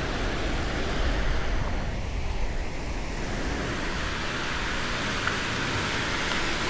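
Gulf surf washing onto the beach, with wind rumbling on the microphone.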